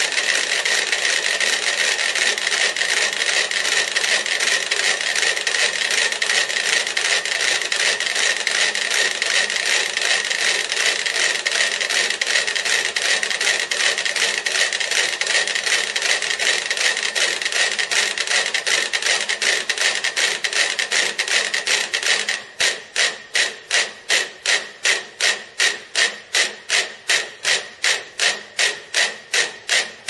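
Thirty-two mechanical pendulum metronomes ticking together on a shared movable board: at first a dense, unsynchronized clatter of overlapping clicks, then about 22 seconds in the ticks suddenly fall into step as one loud click about twice a second, the sign that the metronomes have synchronized through the board's motion.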